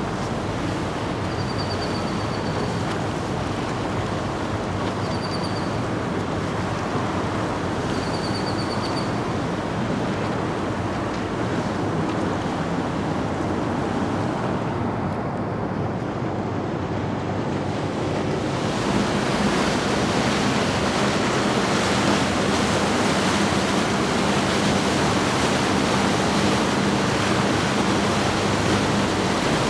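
Outdoor wash of wind on the microphone and churning boat wakes, with a low steady engine hum from passing boats underneath. Three short high chirps come in the first ten seconds. The rushing gets fuller and a little louder about two-thirds of the way through.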